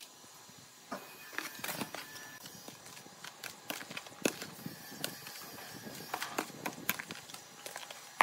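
Metal scoop scraping and stirring through a dry mix of cement and sand in a plastic basin, with irregular scrapes and light taps.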